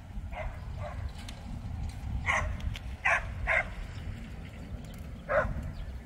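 A dog barking at a distance: about six short barks spaced irregularly, the loudest in the middle and near the end, over a steady low rumble.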